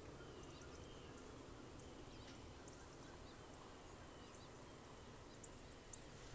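Faint field ambience: a steady high-pitched insect drone with a few faint, short bird chirps.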